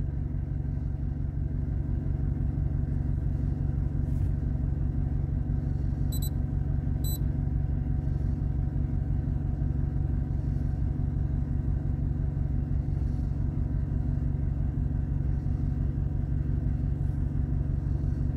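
Skoda Fabia 1.4 TSI (CAVE) engine idling steadily, a low, even hum.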